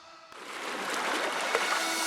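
Background music fades out to a brief dip, then a hiss builds steadily like a reverse-cymbal swell in the music.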